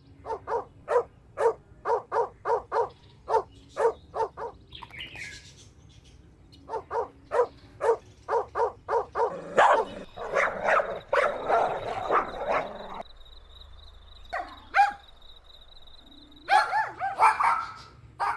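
Dogs barking in quick runs of short, sharp barks, about three a second, with a stretch of dense overlapping barks and yaps in the middle and a final burst near the end.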